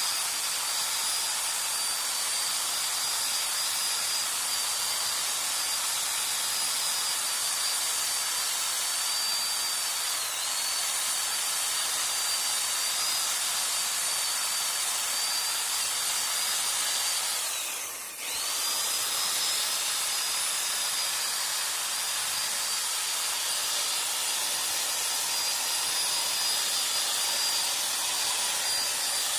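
Power drill spinning a buffing pad against a plastic headlight lens, running steadily with a high whine. Near the end of the first third it sags briefly, and more than halfway through it slows more deeply for a moment before coming back up to speed.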